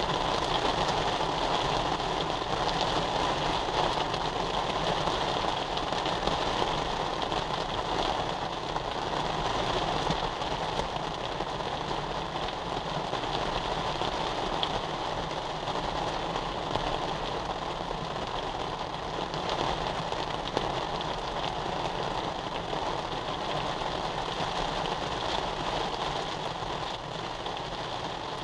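Rain falling on a Mazda MX-5's soft top, heard from inside the cabin, as a steady hiss with a low rumble underneath; it eases off slightly near the end.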